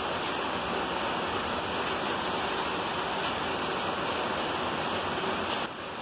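Heavy rain pouring down in a thunderstorm, a dense steady hiss of water on the ground and surfaces that dips briefly near the end.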